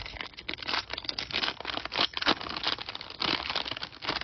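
Plastic wrapper of a baseball card pack crinkling and tearing as hands rip it open and pull it apart. It is a dense run of sharp crackles, with several louder bursts.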